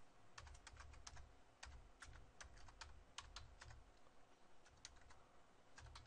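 Faint clicking of computer keyboard keys typed in quick runs, with a short pause about two-thirds of the way through.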